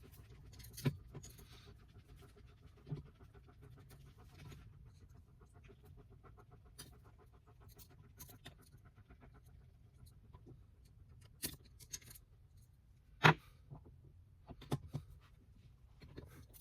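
Scattered light clicks and knocks over faint background noise, with one sharper, louder knock about thirteen seconds in.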